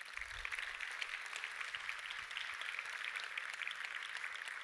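Audience applauding: many people clapping at once in a dense, steady clatter.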